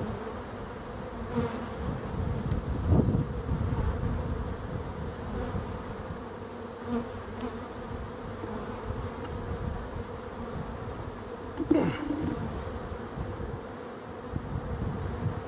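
Honey bees buzzing steadily over an open hive box. Near the end comes a brief scrape as a frame is prised loose with a hive tool.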